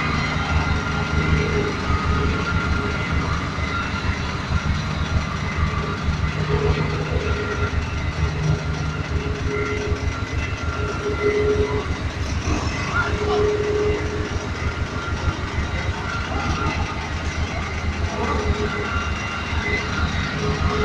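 Diesel engines of road rollers running steadily as they compact fresh asphalt: a rubber-tyred roller passing close and a drum roller working further off.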